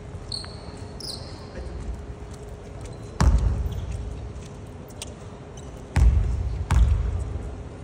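Basketball bouncing on a wooden gym floor: three loud thumps that echo in the hall, one about three seconds in and two close together near the end. A few short sneaker squeaks come near the start.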